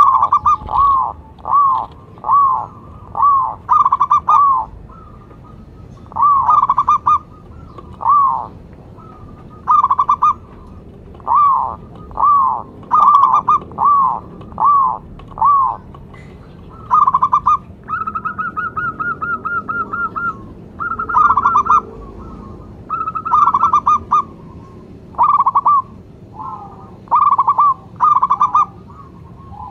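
Zebra dove (perkutut) cooing: a long run of short, bending coo notes, one or two a second with brief pauses, and a quick rattling trill partway through.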